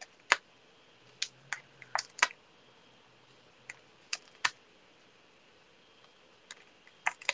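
Scattered light clicks and taps, about a dozen at irregular spacing, from hands handling small paper pieces and mini adhesive foam pads on a craft mat.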